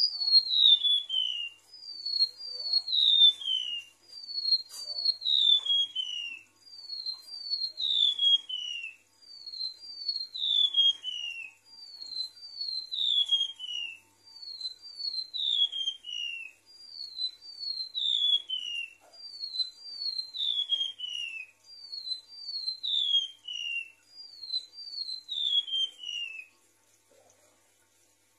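Golden-bellied gerygone (remetuk laut) singing: phrases of two or three high, clear whistles, each sliding down in pitch, repeated about every two and a half seconds. The song stops near the end.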